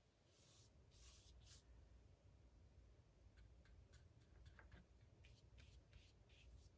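Near silence, with faint soft swishes and scratches of a flat paintbrush stroking paint across paper, in short strokes.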